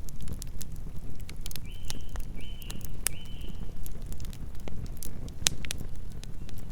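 Campfire burning with a steady low roar and frequent sharp crackles and pops of burning wood. Three short high chirps come in quick succession about two seconds in.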